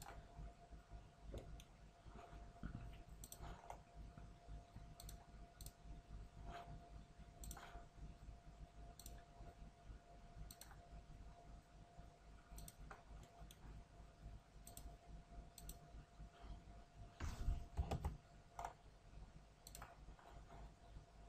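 Computer mouse clicking, single clicks scattered every second or so, over a faint steady hum and whine. A louder burst of noise comes about three-quarters of the way through.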